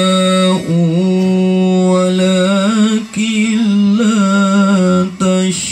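Male qari reciting the Quran in melodic style into a handheld microphone, holding long notes and bending them with quick ornamental trills, with a few short breaks.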